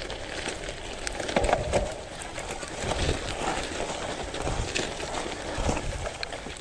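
A cyclist breathing hard in quick, rhythmic breaths while riding a cyclocross bike up a climb and over dirt and grass, with the rumble of the tyres on rough ground and small knocks from the bumps.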